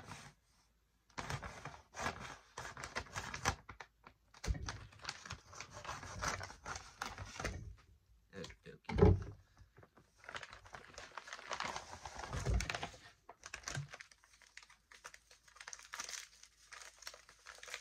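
Plastic packaging of a US First Strike Ration being torn open and crinkled, with items being handled out of the pouch. There are a couple of thumps; the loudest is about nine seconds in.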